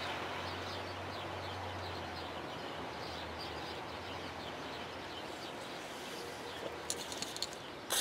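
Steady outdoor background noise with faint bird chirps and a low hum that fades after the first couple of seconds. A few short sharp clicks come near the end.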